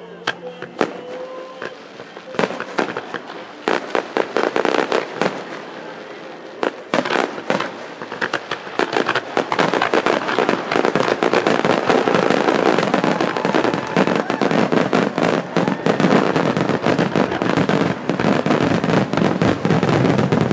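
Aerial firework shells in a grand finale: separate bangs at first, building after about eight seconds into a dense, continuous barrage of bursts and crackle.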